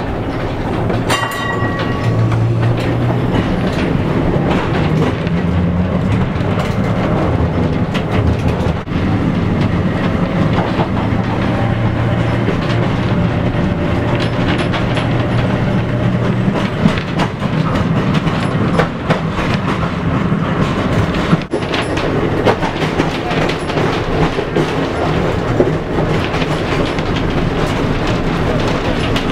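Vintage electric tram running, heard from inside the car: a steady hum from the motors and gearing, with the wheels rumbling and clicking over the rail joints. A short ringing tone sounds about a second in, and the hum eases a little past halfway.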